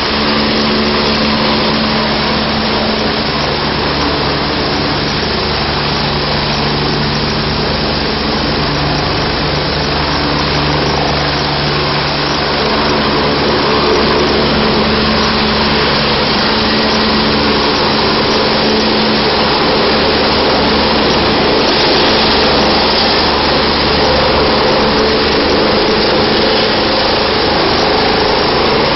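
Medical helicopter hovering low: loud, steady turbine whine and rotor noise, swelling a little about halfway through.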